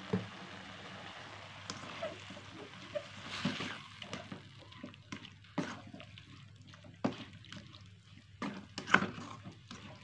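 Beef in black pepper sauce cooking in a pan: a steady bubbling hiss at first, with irregular clicks and knocks of a utensil stirring against the pan. The loudest knock comes near the end.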